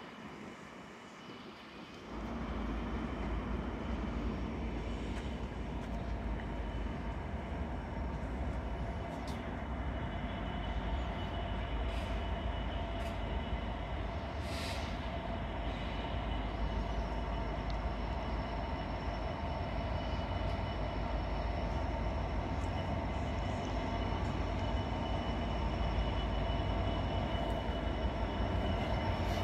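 GB Railfreight Class 66 diesel locomotive hauling a freight train as it approaches, its two-stroke V12 engine running with a steady rumble and several steady whining tones. The sound sets in about two seconds in and grows slowly louder toward the end, with a few faint clicks from the wheels on the track.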